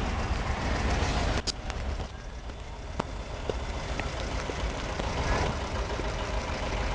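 Steady low rumble of engines running, with a few sharp clicks.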